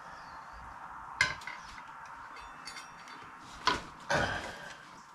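Metal parts clinking and knocking as the front wheel's spacers and axle hardware are handled and worked into place on a Harley Sportster. There are sharp clinks about a second in and two louder knocks nearly four seconds in.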